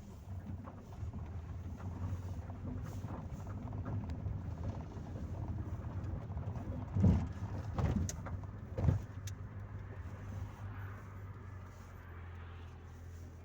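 A Chevrolet Corsa Maxx driving, heard from inside the cabin: a steady low engine and road hum. Three louder thumps come about seven to nine seconds in.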